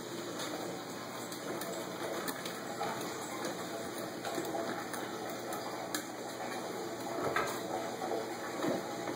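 A ferret rummaging inside a closed kitchen cabinet, with scattered knocks and rattles as things inside are bumped and moved.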